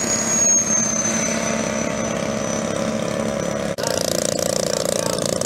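A radio-controlled model jet flying a low pass, its high whine sliding slowly down in pitch as it goes by. Near the end this gives way abruptly to the steady buzz of a twin-engine model bomber's engines running on the ground.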